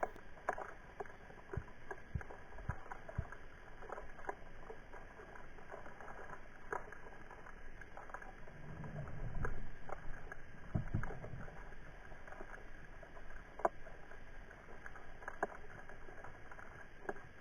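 Brown meagre (eşkina, Sciaena umbra) sounds: scattered short knocks and clicks, with a louder run of low grunts about nine seconds in and another near eleven seconds. The fish makes them by vibrating its swim bladder with special muscles, using its body like a drum, not by knocking together the two white stones in its head.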